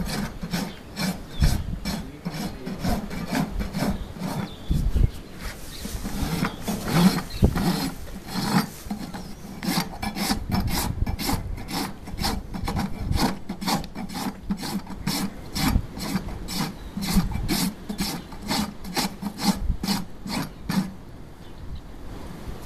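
Farrier's hoof rasp filing a horse's hoof held on a hoof stand, in quick, evenly repeated scraping strokes, with a few dull knocks and a brief pause near the end. The hoof is being rasped down and finished for shoeing.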